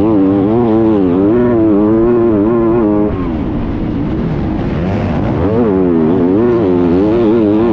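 250cc four-stroke motocross bike engine heard from onboard, revving up and down rapidly under hard throttle in deep sand. The note drops back about three seconds in, then climbs and wavers again near the end.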